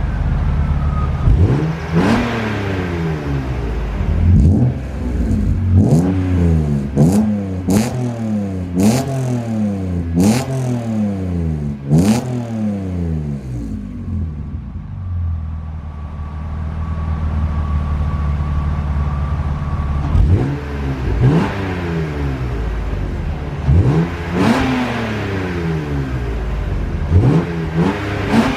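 BMW Z3 M straight-six engine revved repeatedly through its exhaust: sharp throttle blips that each fall quickly back, about ten in a row, then a steady idle for several seconds, then a few more blips near the end.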